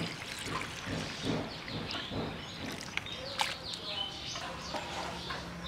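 Birds chirping, with people's voices in the background.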